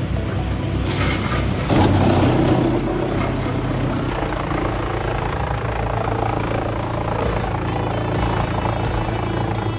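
Heavy machinery running with a steady engine drone and a wash of mechanical noise. It gets louder for about a second, about two seconds in. Background music plays faintly underneath.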